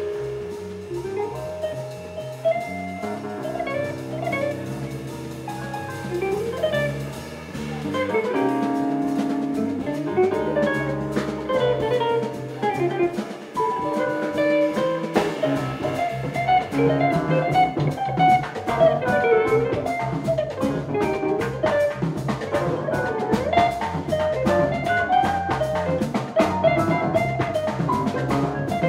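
Jazz quintet of guitar, drums, saxophone, keyboards and bass playing a minor blues in a five-beat meter: a melodic line over held chords, bass and drums, with the cymbals growing busier about halfway through.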